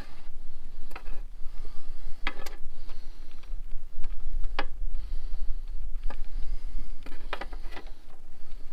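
Scattered sharp clicks and scrapes of hand tools and metal parts being handled on a zero-turn mower's engine during a tune-up, over a steady low rumble on the microphone.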